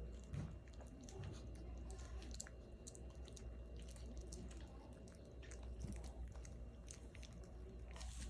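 Month-old Australian cattle dog puppies making soft, scattered wet clicking mouth sounds, over a low steady hum.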